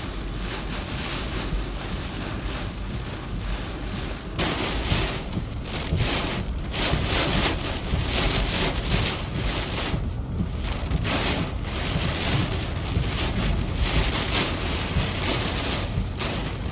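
Hurricane-force winds and driving rain roaring across the microphone, surging in gusts. About four seconds in the sound turns suddenly brighter and harsher, with stronger gusts.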